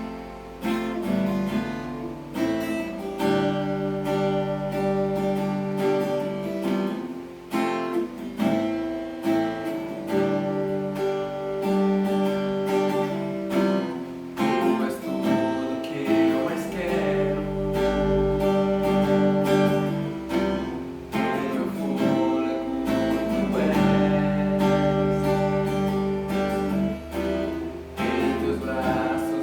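Acoustic guitar strummed in sustained chords with a regular strumming rhythm, starting abruptly at the outset.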